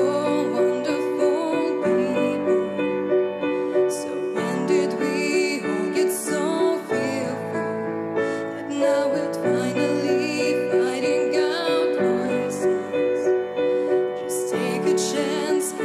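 A young woman singing a slow ballad with vibrato into a handheld microphone over a piano backing track.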